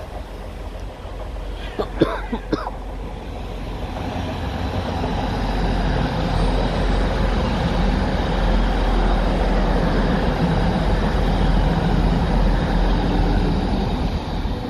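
TransPennine Express Class 185 diesel multiple unit running past on the far track: engine hum and wheels on rails build up from about four seconds in and stay loud as the carriages go by. A short sharp knock about two seconds in.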